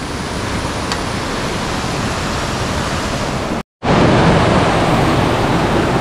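Steady rush of a large, fast-flowing stream. The sound breaks off for a moment just under four seconds in and comes back a little louder.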